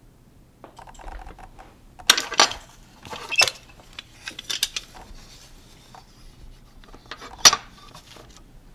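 Handling noise from a baby top on a clear plastic hanger being moved about on a desk: several sharp clicks and knocks with fabric rustling between them. The loudest clicks come about two seconds in and again late on.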